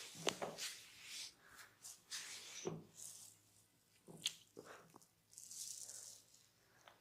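Close-miked hands massaging bare skin: airy rubbing and kneading swishes, with a few short, sharp sounds, the loudest about a third of a second in and others at about two and three-quarter and four and a quarter seconds.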